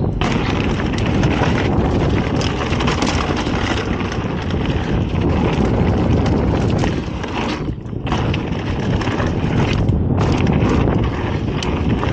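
Polygon Siskiu T7 full-suspension mountain bike descending a dirt trail at speed: wind buffeting the microphone over tyre rumble and the bike rattling and knocking over bumps, with a brief lull about two-thirds of the way through.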